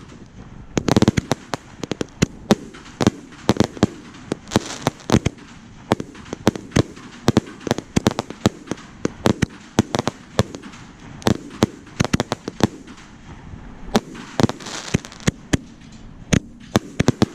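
Fireworks going off in quick succession: a steady stream of sharp bangs, several a second, with brief patches of crackle.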